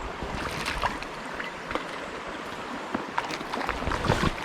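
Trout stream water running steadily, with scattered short sharp ticks and small splashes.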